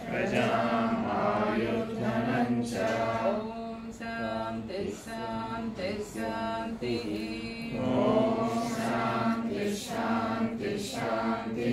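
Several voices chanting a Vedic mantra together in short phrases with brief pauses between them.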